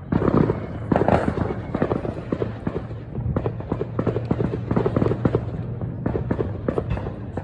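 Fireworks going off in a rapid crackling barrage: many sharp pops in quick succession, with the loudest bangs in the first second or so.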